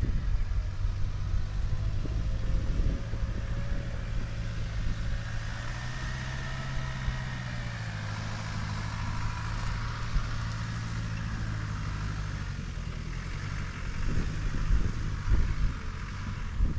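Off-road vehicle engine running steadily while driving, with a higher whine that rises and falls midway and scattered knocks near the start and again near the end.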